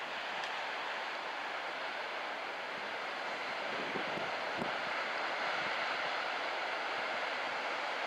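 Steady wash of breaking surf mixed with strong wind, a little louder from about halfway through.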